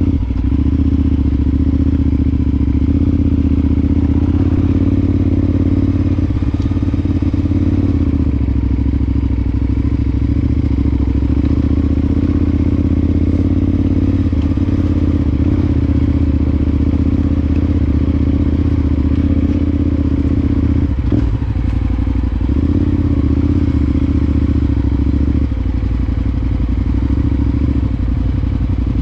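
Adventure motorcycle engine running steadily at low revs, with small changes in engine note a few times and a brief knock about two-thirds of the way through.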